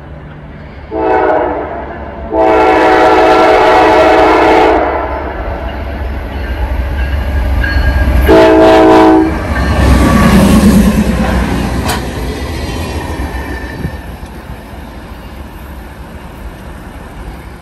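Norfolk Southern diesel locomotive leading the track geometry train, sounding its air horn three times: a short blast about a second in, a long blast of about two and a half seconds, and another short blast around eight seconds in. Under the horn, the locomotive's engine and the train's wheels rumble louder as it passes, then fade.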